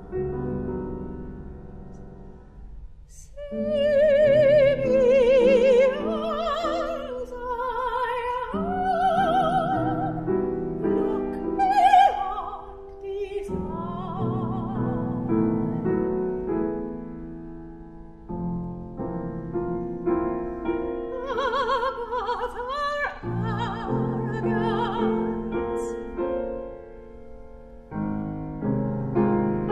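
Operatic soprano singing with a wide vibrato over grand piano accompaniment. The piano carries on alone between her phrases, for several seconds around the middle and again near the end.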